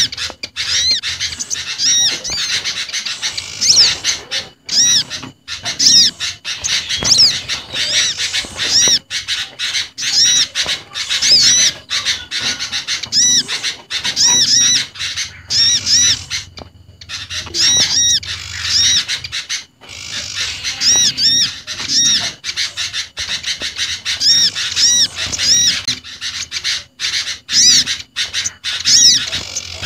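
Bird-lure recording of small garden birds mixed together (olive-backed sunbird, bar-winged prinia, sooty-headed bulbul and sirtu), calling busily. High arched chirps repeat a couple of times a second, with a brief break about 17 seconds in.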